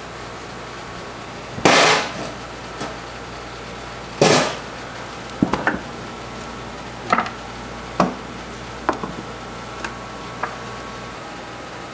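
Two loud knocks about two and a half seconds apart, then a string of lighter knocks and clicks, as beef and butcher's tools are handled on a work table.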